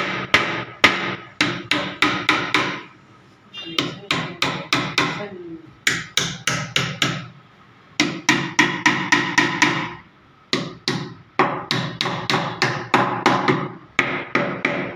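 Hammer driving nails into wood: runs of quick, sharp strikes, about three or four a second, each with a short ring, broken by brief pauses.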